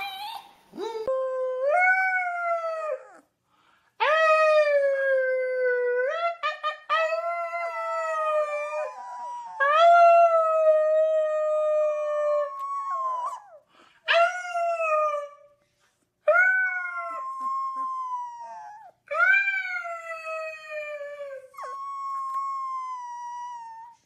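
A puppy howling: a run of about ten long howls, each rising at the start and then sliding slowly down in pitch, with short breaks between them.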